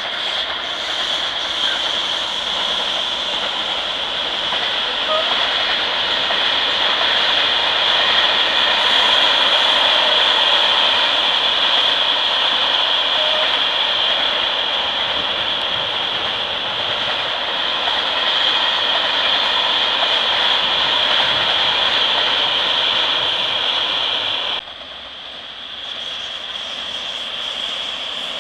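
A train rolling past, a steady loud noise of wheels on rails with a strong high hiss. Near the end it cuts off abruptly to a quieter train sound.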